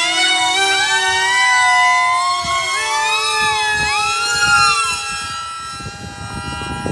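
Motors of several electric RC model jets whining together at high throttle as they take off and climb away, their overlapping pitches rising, dipping and shifting against each other as the throttles change.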